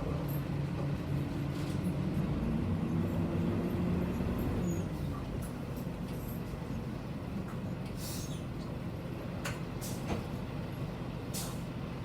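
Diesel city bus heard from inside the cabin: the engine pulls strongly for the first few seconds, then eases off about five seconds in, leaving steady road rumble. A few short hisses come near the end.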